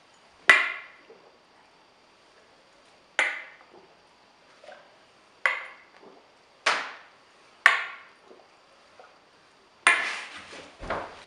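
Five small glass shot glasses set down hard one after another on a stone countertop, each a sharp knock with a short ring, a few seconds apart and then closer together. A longer, noisier clatter follows near the end.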